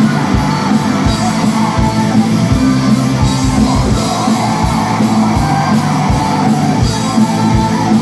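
Live metal band playing loud: drums with repeated kick-drum beats, electric guitar and flute, with a male vocalist shouting and a female vocalist singing.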